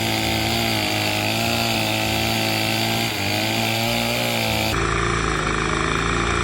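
A gas-powered saw's two-stroke engine running steadily, its pitch wavering slightly as it works. About three-quarters of the way through, the sound changes abruptly.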